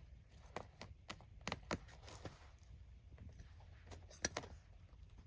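Irregular light taps and clicks of a cat playing with a wand-style teaser toy. They come as a cluster in the first two and a half seconds, with a sharper tap about four seconds in.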